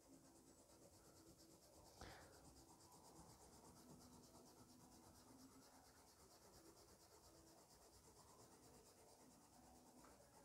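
Faint rubbing of an ordinary eraser over watercolour paper, rubbing out pencil lines, with a light knock about two seconds in.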